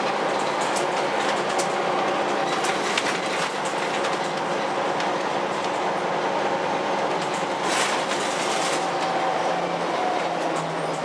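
Interior of a moving bus: steady engine and road noise with a faint engine whine, and scattered clicks and rattles from the cabin fittings.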